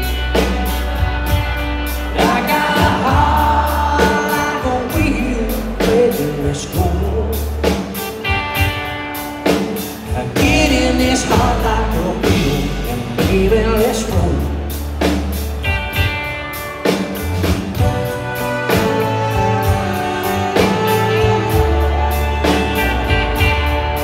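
Live country-rock band playing between sung lines: electric and acoustic guitars, bass and drums, with a melodic lead line over them.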